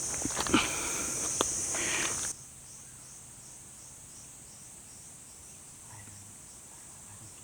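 A loud, steady, high-pitched insect chorus with a few knocks and rustles of handling, cutting off abruptly about two seconds in. A much quieter insect call follows, pulsing about four times a second.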